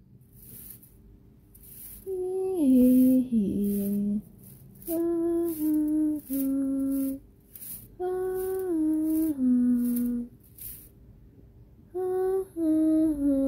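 A woman humming a slow tune in four short phrases, each stepping down in pitch. Between and under the phrases, a small straw broom sweeps a hard floor in short, repeated swishes.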